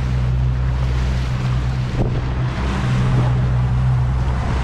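Small boat's 40 hp outboard motor running steadily underway, a constant low hum, with water rushing along the hull and wind buffeting the microphone.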